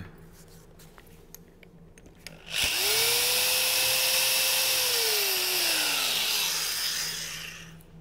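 Power drill boring a hole into an aerated concrete block: the motor spins up about two and a half seconds in, runs steadily with a gritty hiss from the bit cutting the soft block, then winds down with a falling tone and fades out.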